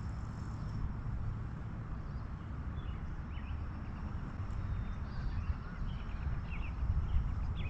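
Wind rumbling on the microphone, with short bird chirps scattered through it.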